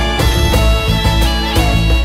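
Background music with a steady beat and heavy bass under sustained melodic tones.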